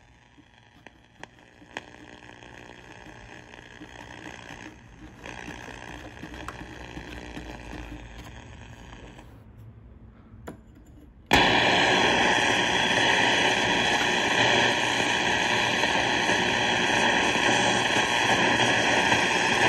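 Nine-band Transglobe radio on shortwave: faint hiss with a few sharp clicks from its controls, then about eleven seconds in, a sudden jump to loud, steady static.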